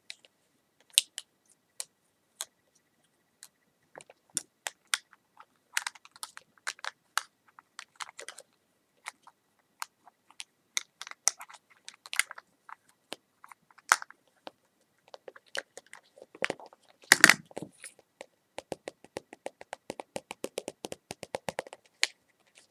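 Small hard clicks and taps made close to the microphone for ASMR, spaced irregularly. About three quarters through there is one louder, fuller knock. After it comes a rapid run of clicks like fast tapping.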